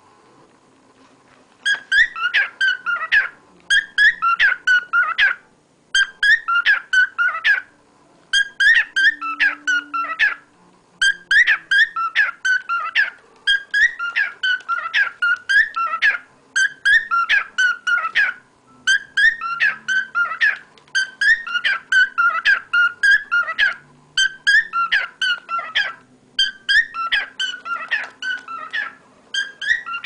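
Cockatiel singing: phrase after phrase of quick, warbling whistles, each phrase a second or two long with short pauses between, starting about two seconds in.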